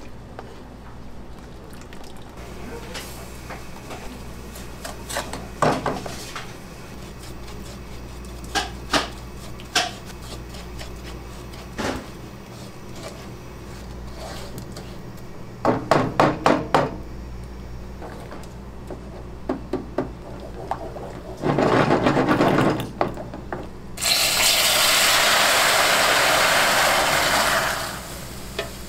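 Cooking at the stove: a ladle and spatula knock and scrape against a steel pot and a nonstick frying pan, in scattered clicks. Near the end, liquid sizzles loudly and steadily in the hot pan for about four seconds, then cuts off.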